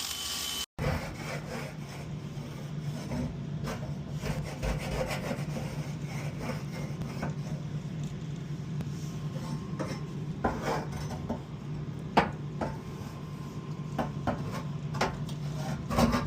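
Scraping calcium scale off the inside of a humidifier, with repeated rubbing and grating strokes and occasional clicks of the tool against metal, over a steady low hum.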